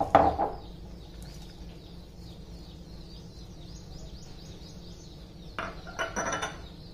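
A glass bowl knocks against a stone mortar as garlic cloves, spices and herbs are tipped into it. There is one clatter right at the start and a second burst of knocks and rattles about six seconds in. Faint bird chirps repeat in the background.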